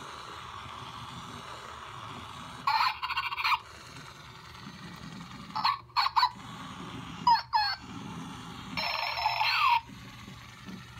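Zhu Zhu Pets Siberian Husky toy dog playing short electronic sound effects through its small speaker: four bursts, the last one with a falling pitch glide near the end, over a steady low hum.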